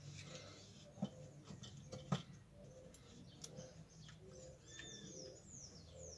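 Quiet birdsong and calls, with a run of quick descending whistled notes near the end. Two sharp clicks about one and two seconds in stand out as the loudest sounds.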